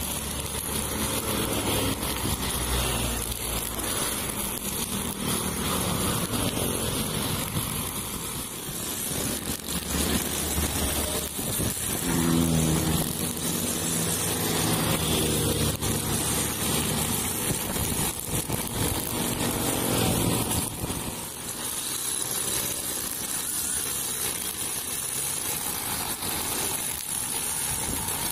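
Small brush cutter engine running steadily as its nylon line cuts grass, mixed with cars and motorcycles passing close by, which swell louder now and then.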